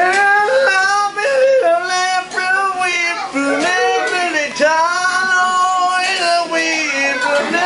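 A voice singing a melody in long held notes that step and bend in pitch.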